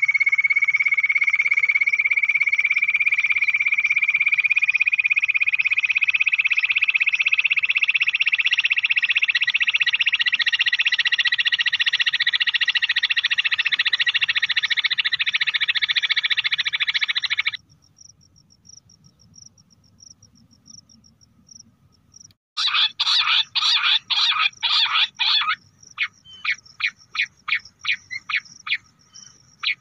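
Bush quail calls. A dense, continuous trilling chorus rises slowly in pitch and cuts off suddenly a little past halfway. After a few seconds' pause comes a run of sharp repeated call notes, about three a second, turning quicker and thinner near the end.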